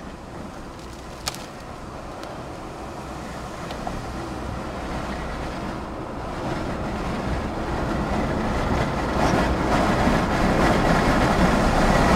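Strong thunderstorm wind rushing around a moving car, mixed with tyre and road noise, building steadily louder, with a single sharp click about a second in.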